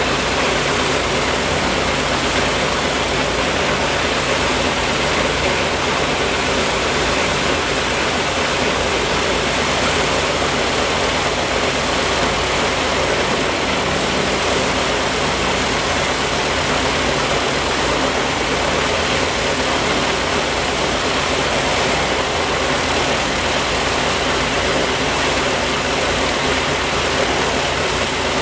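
The Il-14T's left Shvetsov ASh-82T 14-cylinder radial engine running at a steady speed with its propeller turning. The sound is loud and unchanging: a rushing noise over a low, even engine drone.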